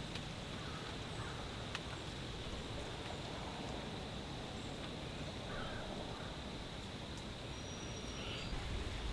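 Steady outdoor background noise with a few faint, short bird calls and a single small click about two seconds in.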